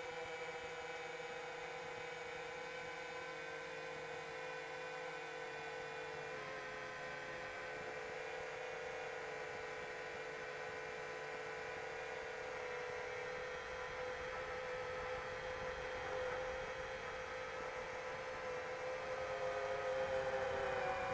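iFlight Chimera 7 Pro FPV drone's motors and propellers whining steadily in cruising flight, heard from a camera on the drone. The pitch drifts a little and rises slightly, getting louder, near the end.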